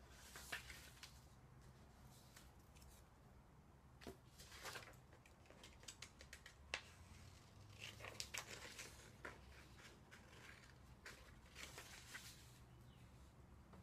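Faint, irregular snips of scissors cutting paper, mixed with the rustle of a paper sheet being handled and turned. The snips come closest together about eight seconds in.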